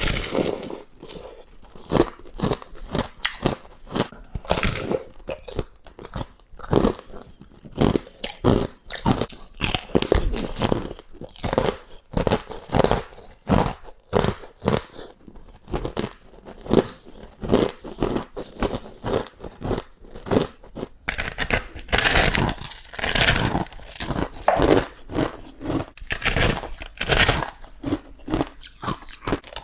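Close-up crunching of ice being bitten and chewed, a steady run of sharp crunches about one to two a second, louder and grittier for a few seconds about three-quarters of the way through.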